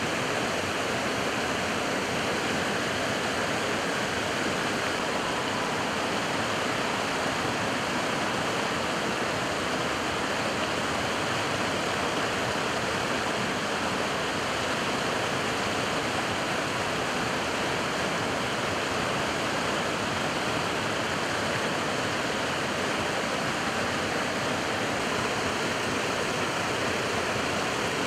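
Neretva river water rushing steadily, an even, unbroken wash of sound.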